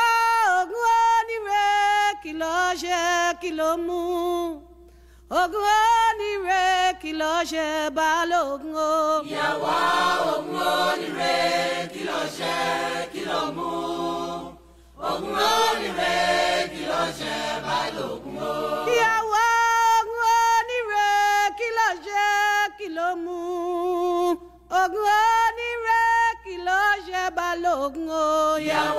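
Unaccompanied singing: a lone voice with vibrato, joined by a group of voices in harmony for several seconds in the middle, then the lone voice again.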